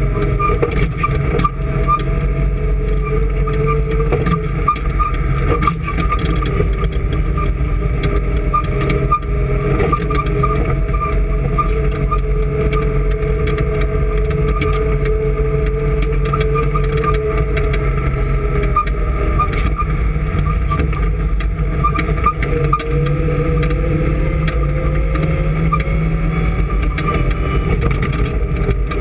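An engine running steadily at an even speed, with a steady high whine above its rumble.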